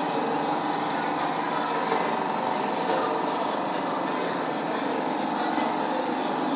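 Small DC gear motors and servos of a tabletop conveyor and robotic sorting arm running, a steady motor whir with a held buzzing tone.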